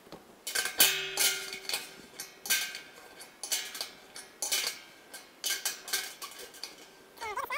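Wrench clanking on metal against a stainless steel pot while the nut that holds a drain valve is tightened, a run of sharp metallic clanks about twice a second with the pot ringing after several of them.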